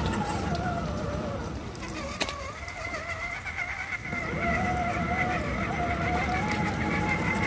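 Radio-controlled scale crawler's electric motor and gear drive whining steadily as it drives, dropping away for about a second and a half near the middle and then picking back up. A single sharp click about two seconds in.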